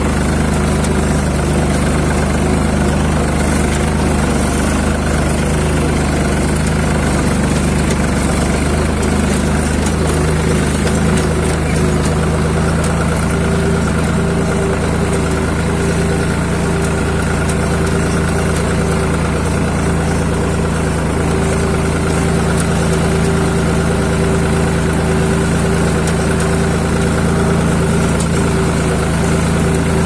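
Farm tractor engine running steadily as the tractor drives over ploughed ground; its note shifts slightly about ten seconds in.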